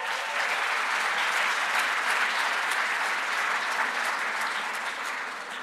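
Large audience applauding: dense, steady clapping that dies away near the end.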